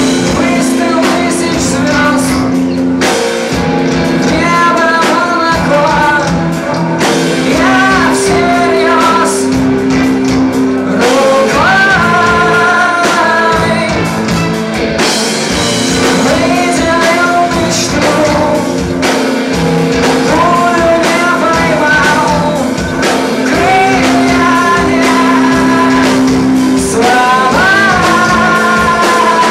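Live rock band playing: a male lead vocal sung over electric guitars, bass guitar and a drum kit.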